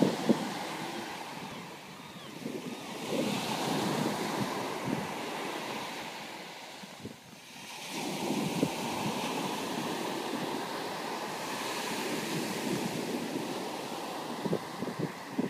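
Small sea waves breaking and washing up a sandy beach, the surf swelling and easing with a brief lull about halfway through. Wind rumbles on the microphone in gusts at the start and near the end.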